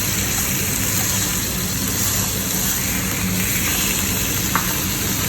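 Food sizzling steadily on a hot tabletop grill plate, over a low steady hum, with one light tap about four and a half seconds in.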